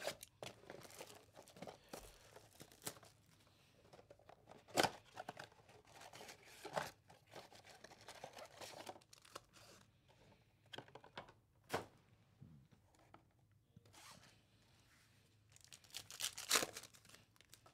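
A trading-card blaster box being unwrapped and opened, then a foil card pack torn open: irregular crinkling, scraping and tearing of plastic wrap, cardboard and foil. The louder tears come about five, seven and twelve seconds in, with a longer burst near the end.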